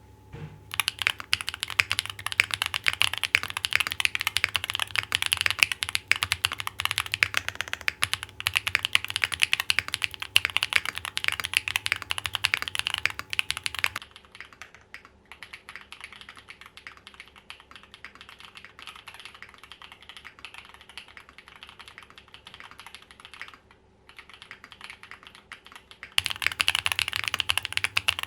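Fast, continuous typing on a Neo65 custom mechanical keyboard with MDD Princess switches on a POM plate, GMK keycaps and foam inside: a dense stream of key clacks. The typing drops much quieter about halfway through and comes back loud a couple of seconds before the end.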